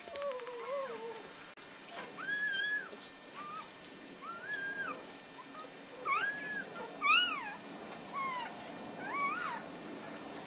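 Newborn Irish setter puppies crying: a string of short, high squeals, each rising and falling in pitch, as the mother licks them clean.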